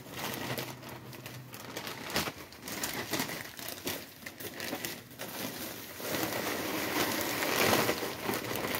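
Plastic bag of potting mix crinkling and rustling as it is handled, with irregular crackles that grow denser and louder over the last few seconds.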